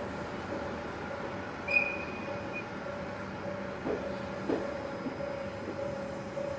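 Electric commuter train rolling slowly along the adjacent track, its wheels clacking over rail joints a few times in the second half, over a steady train hum. A brief high squeal about two seconds in.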